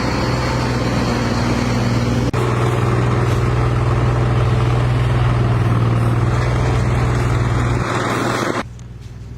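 Engine of heavy road-works machinery running steadily with a deep hum, then cutting off abruptly near the end.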